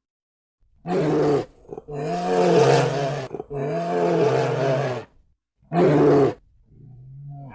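Brown bears roaring as they wrestle: five calls with short gaps, the two in the middle long and rising then falling in pitch, the last one quieter and lower.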